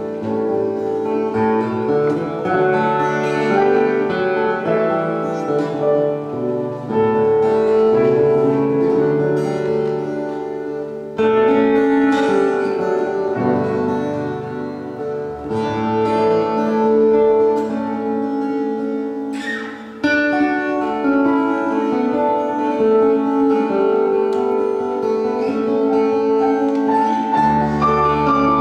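Grand piano and a small plucked string instrument playing an instrumental duet.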